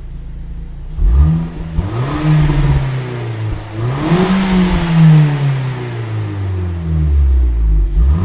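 Exhaust of a Renault Mégane GT with its original middle silencer replaced by a Simons stainless-steel sport silencer, the stationary engine revved from idle in several throttle blips. The biggest rev comes about four seconds in and winds slowly back down toward idle, with another short blip near the end.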